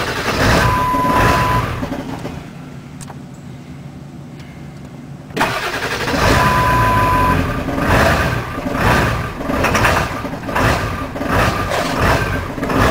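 Ford 7.3L Powerstroke V8 turbo-diesel being started: it runs briefly and drops away about two seconds in, then is cranked again suddenly about five seconds in and catches, running in an uneven pulsing surge with pulses under a second apart. A steady one-second beep sounds twice, once with each start. The hard start and unstable running are the sign of a failed injection control pressure (ICP) sensor whose leaking oil ruined its wiring harness, so the engine computer ignores it.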